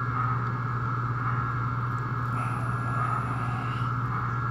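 A steady low hum with a fainter, higher steady tone above it, unchanging throughout.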